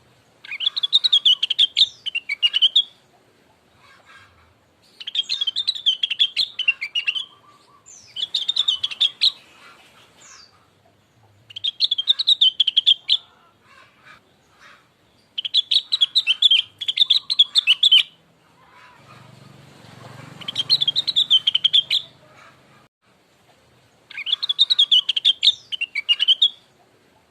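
Rengganis (cucak wilis) songbird singing in repeated bursts of rapid, chattering high notes. Each burst lasts two to three seconds, with short pauses between; this is a lure song used to prompt caged birds to answer.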